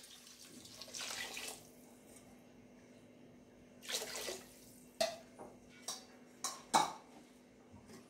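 Water poured from a glass tumbler into a pressure cooker of thick masala, splashing in two pours, about a second in and about four seconds in. A few short, sharp knocks follow near the end.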